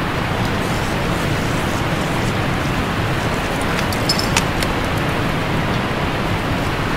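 Steady rushing of stream water running over a rock slab, with a few light clicks about four seconds in.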